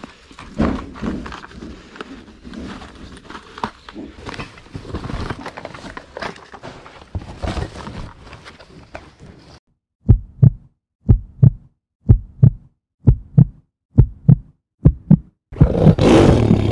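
Irregular rustling and clicking for about ten seconds, then a heartbeat sound effect: deep thumps in lub-dub pairs, about one pair a second, six pairs in all. Just before the end the thumps give way to a loud, dense sound that swells in suddenly.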